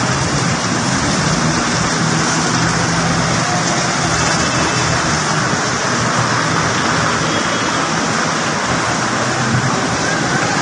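Steady, loud rush of moving floodwater and rain, with a faint low hum underneath.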